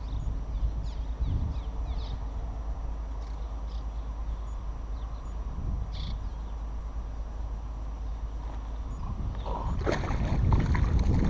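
Wind rumbling on the camera's microphone. From about nine and a half seconds in, a run of sharp clicks and rattles from the baitcasting rod and reel being handled.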